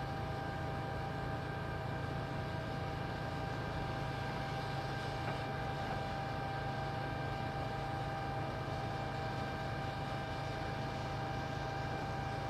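Steady running of a machine: an even mechanical drone with a constant whine held at one pitch throughout.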